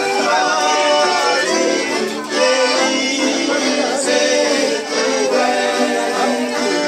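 Music playing continuously, with sustained melodic lines.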